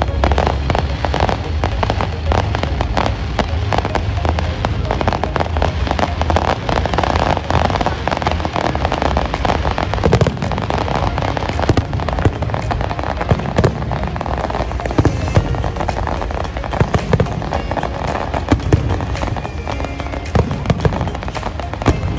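Fireworks going off in a dense run of rapid crackles, with louder single bangs standing out more often in the second half, over music.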